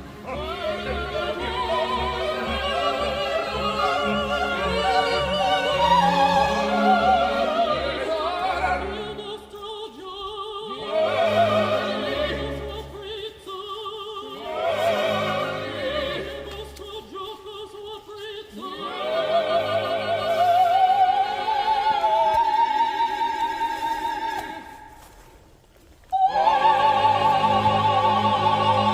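Operatic singing with orchestral accompaniment, the voice held in long notes with strong vibrato. It fades down about 25 seconds in and cuts back in abruptly a second later.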